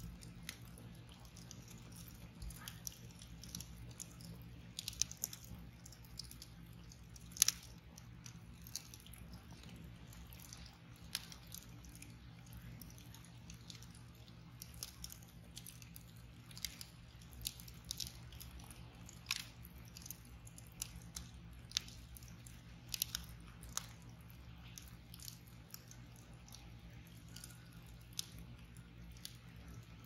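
Wood log burning on embers, crackling with irregular sharp pops, the loudest about a quarter of the way in, over a faint low steady hum.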